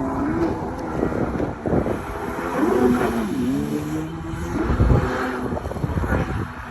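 Kawasaki 650 SX stand-up jet ski's two-stroke twin engine running, its pitch rising and falling repeatedly as the throttle is worked.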